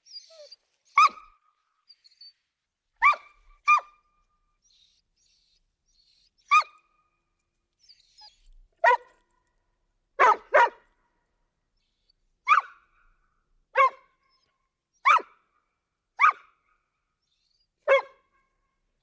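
A dog barking: about a dozen single, sharp barks at uneven intervals, a few in quick pairs, with silence between them.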